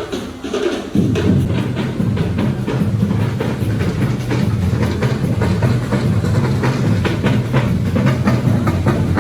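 Music with drums and percussion over a steady bass beat, dipping at the start and coming back in full about a second in.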